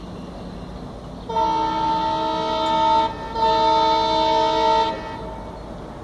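Horn of an Indian Railways ALCO WDM3A diesel locomotive sounding two long blasts, each about a second and a half, with a brief break between them.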